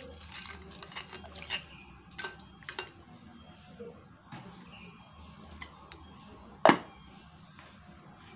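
A thin stick stirs cattle-hide scraps cooking in water in a ceramic slow-cooker pot for hide glue, making light clicks and taps against the pot in the first three seconds. About two-thirds of the way in there is one sharp clink, the loudest sound here, as the glass lid is set down on the pot.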